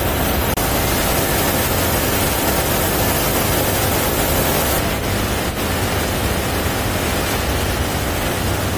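Baler machine running: a loud, steady, even mechanical noise with a low hum beneath it.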